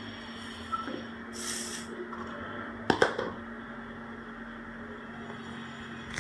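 Items being put into a refrigerator: a brief rustle, then two sharp knocks close together about three seconds in, over a steady hum.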